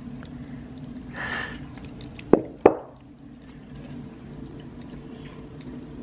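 Two sharp knocks about a third of a second apart, a little over two seconds in, as a cat food bowl is set down on the floor. A short rustle comes just before, over a faint steady hum.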